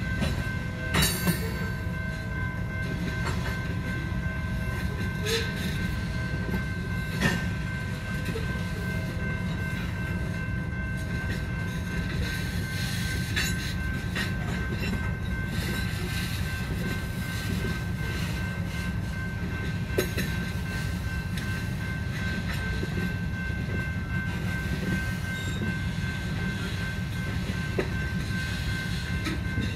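Covered hopper cars of a freight train rolling past over a grade crossing: a steady low rumble of steel wheels on rail, with a thin steady high tone above it and a few sharp clacks spaced several seconds apart.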